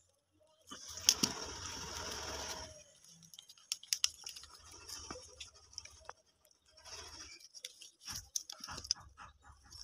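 Stiff leather sandal being handled and worked by hand with a pointed steel tool: crackling and rustling of the leather, a steady stretch of it starting about a second in, then scattered small clicks and scrapes.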